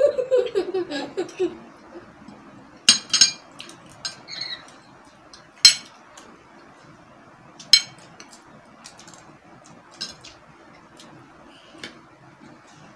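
Spoons clinking and scraping against plates during a meal, with a handful of sharp clinks spread a second or two apart. A voice is heard briefly at the start.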